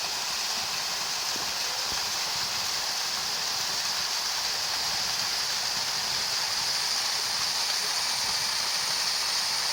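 Waterfall's water rushing, a steady unbroken hiss.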